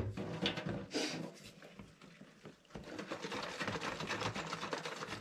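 A whisk beating egg batter in a glass bowl: quick scraping strokes against the bowl, sparse at first, then a fast, even rhythm from about halfway.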